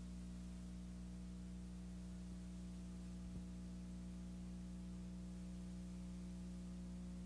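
Low, steady electrical hum with a faint hiss, and a faint click about three and a half seconds in.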